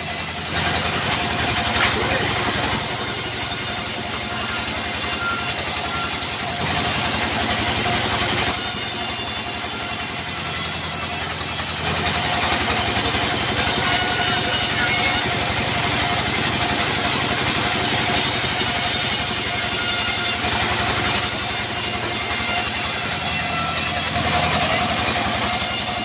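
Vertical band sawmill cutting a log into planks: the blade runs with a steady machine drone beneath it, and a high screech of the cut starts and stops every few seconds as the log is pushed through pass after pass.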